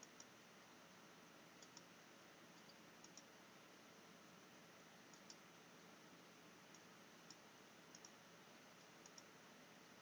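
Computer mouse buttons clicking: about a dozen faint short clicks at irregular moments, several in quick pairs, over a steady low hiss.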